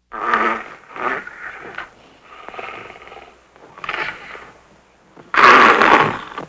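A woman snoring loudly in a string of rough, irregular snores with short gaps between them, the loudest one about five seconds in.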